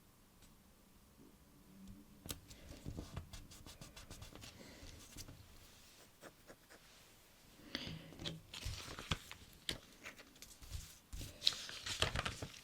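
Stickers being peeled from their backing sheet and pressed and smoothed onto a paper sticker-book page. It starts quiet, with scattered light clicks and scratches, then a louder run of crackly peeling and rubbing in the last few seconds.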